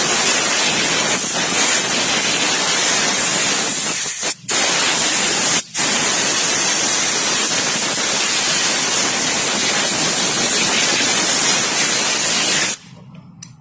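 A loud, steady hiss that starts abruptly, cuts out twice for a moment a few seconds in, and stops suddenly near the end.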